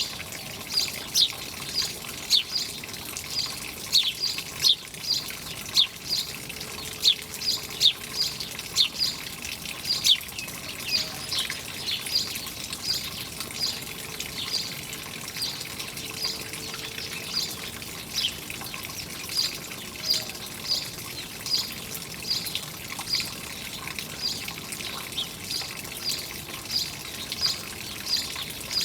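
Small birds chirping: short, high, falling chirps repeated about twice a second, over the steady hiss of running water.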